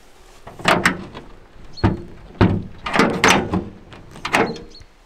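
Sheet-metal cab door of a Kirovets K-700A tractor being worked by its handle: a series of about half a dozen sharp metallic clunks and rattles, irregularly spaced, as the door is yanked.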